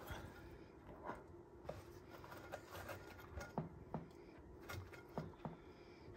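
Sulcata tortoise biting and chewing its food, a series of faint, irregular crunches and clicks.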